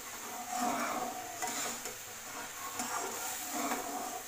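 Flat metal spatula stirring and scraping a watery semolina halwa mixture around an aluminium kadai in repeated uneven strokes, the liquid simmering over a low flame.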